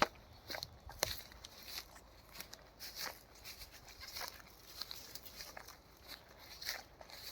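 Footsteps crunching on a dry forest floor, irregular steps roughly one every half second to second, with a sharp click about a second in.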